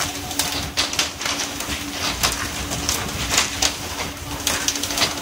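Pole-and-line tuna fishing from a boat's rail: water hissing and splashing along the hull, with irregular sharp slaps and knocks as fish are jerked from the water and hit the deck, over a steady low hum from the boat.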